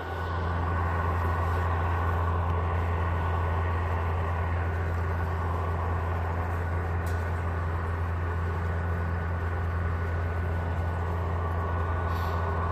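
Steady low hum with an even hiss above it and a faint high tone, unchanging throughout, typical of an overhead high-voltage power line in damp air.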